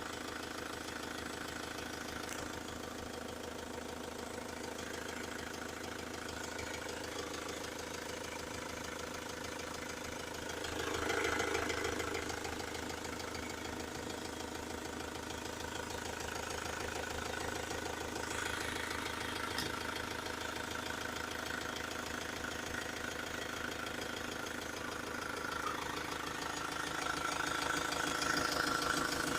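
Ford Transit van engine running with a knock that the owner cannot place. It is briefly louder about eleven seconds in and grows louder again near the end.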